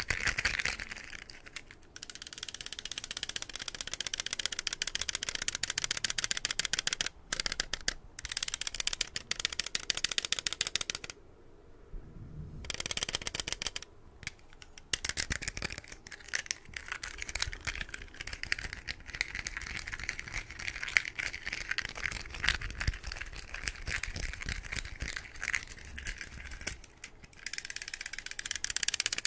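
A small toy car handled close to the microphone, its parts rattling in a fast, dense run of tiny clicks, broken by a few short pauses.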